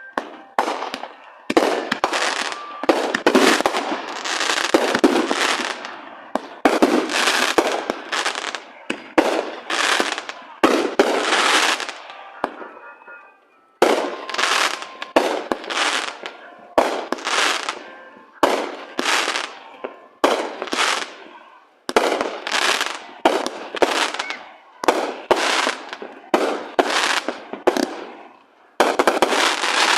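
A rapid volley of firework explosions, one or two sharp bangs a second, each trailing off in a noisy tail. The volley breaks briefly about halfway through and again near the end.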